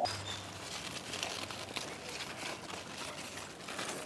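Faint rustling and crinkling with scattered light clicks, as of things being handled.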